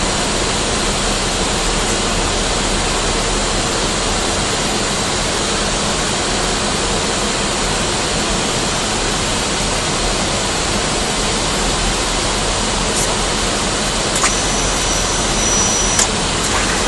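Steady rush of airflow and jet engine noise on an airliner's flight deck in flight. A faint, thin high tone sounds for about two seconds near the end.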